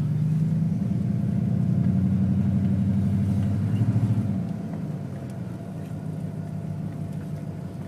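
A motor vehicle's engine running while driving off. It pulls harder for the first four seconds or so, then eases back to a lower, steady run.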